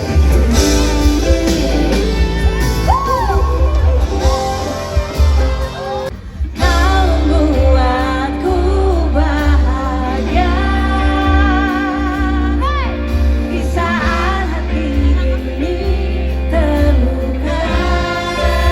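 Live pop music through a concert PA: a band with heavy bass and a singer holding long notes with vibrato, with a brief dip in the music about six seconds in.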